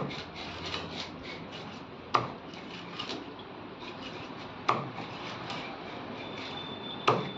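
A broad knife scraping the scales off a hilsa fish on a wooden chopping block, with small ticks and three sharp knocks on the wood, spaced about two and a half seconds apart.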